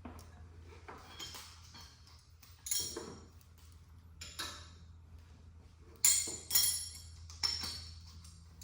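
Metal clinking and clanking: about five sharp, ringing strikes, the loudest about six seconds in, over a steady low hum.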